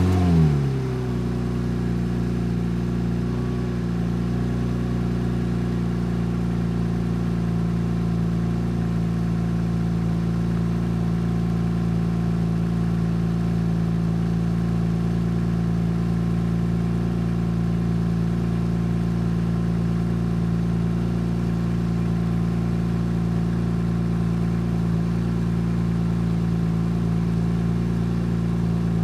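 Porsche 996 911 Turbo's 3.6-litre twin-turbo flat-six just after start-up: a brief flare of revs that falls away within about a second and settles into a steady idle.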